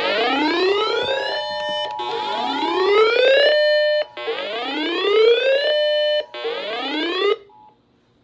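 Emergency Alert System alert tones: four loud rising whoop sweeps about two seconds apart, each climbing and holding briefly before cutting off, over the steady two-tone EAS attention signal, which stops shortly before the last whoop.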